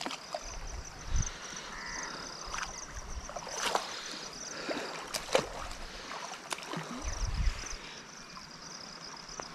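Water sloshing and splashing as a person wades through shallow, muddy floodwater with a fine-mesh fishing net, with a few short, sharp splashes along the way. Insects chirp steadily in the background.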